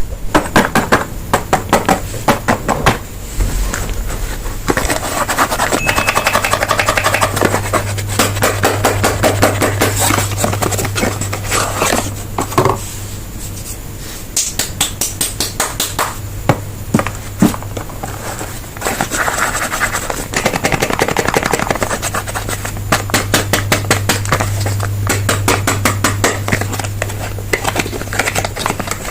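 Soap bar packaging being opened by hand: rapid, dense crinkling and crackling of wrappers and boxes, with a low steady hum underneath for long stretches.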